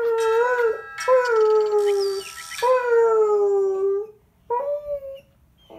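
A dog howling: several long, wavering howls in a row, each sagging in pitch as it ends, then one short howl.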